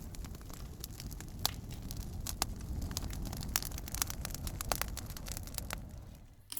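Bonfire crackling: irregular sharp pops and snaps over a steady low rush of burning. The sound dips away briefly near the end.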